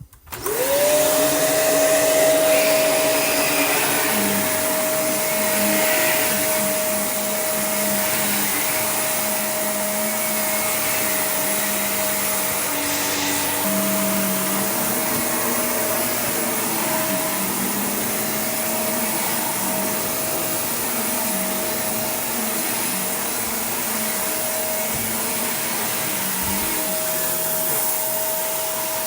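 Shark Rotator Professional upright vacuum cleaner switching on and spinning up to speed, then running steadily with a constant whine while vacuuming carpet.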